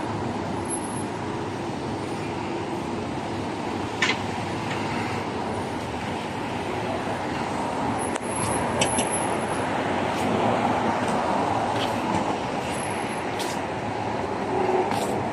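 Steady road traffic noise on a city street, cars running past, with a few brief sharp clicks.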